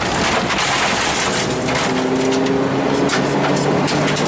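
Rally car interior noise at speed: the engine running under a dense rush of road and tyre noise, with many sharp ticks and knocks. A steady engine note becomes clearer after about a second and a half.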